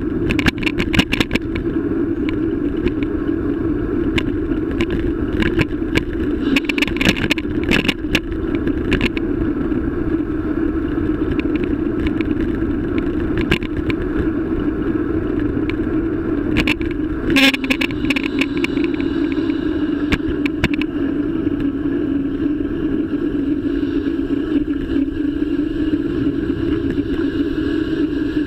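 Bike-mounted camera on a moving bicycle, picking up steady road and wind noise with frequent rattles and clicks as the mount jolts over the pavement. The clicks come in clusters in the first couple of seconds and again from about 5 to 9 seconds in, with the sharpest jolt about 17 seconds in.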